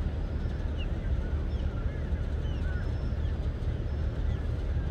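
Steady low rumble from the cruise ship Serenade of the Seas' engines as it sails past, with many short bird chirps scattered over it.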